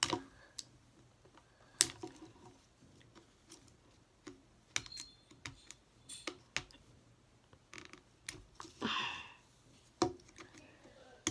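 Fingernails picking and clicking at the seam and zip strip of a hard plastic Toy Mini Brands capsule ball, in irregular sharp clicks and taps, with a brief rasping scrape about nine seconds in.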